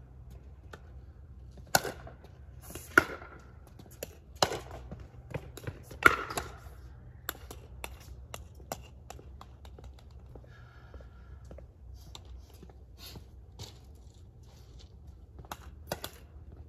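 A pickleball rally: paddles strike the plastic ball four times with sharp pocks about a second and a half apart, followed by lighter taps and scuffs, and two more sharp taps near the end.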